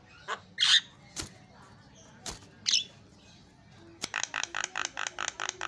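Javan myna calling: a few short harsh squawks and sharp clicks, then from about four seconds in a fast run of repeated short notes, roughly six a second.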